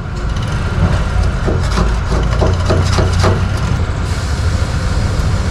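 A metal scraper working at hardened epoxy putty on the underside of a car's fuel tank: a quick run of about eight short scrapes in the middle, over a steady low rumble. The putty is being removed because the tank is leaking petrol around the old patch.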